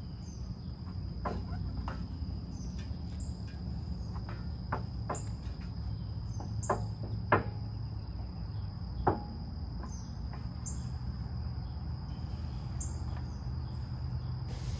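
Crickets trilling steadily, with a low steady hum underneath and scattered light clicks and knocks from hand work on the truck's front suspension.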